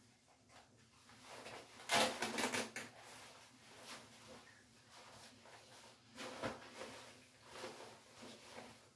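Fishing vest being handled and fastened at the front: fabric rustling with short bursts of rapid clicking. The loudest burst comes about two seconds in, with smaller ones later.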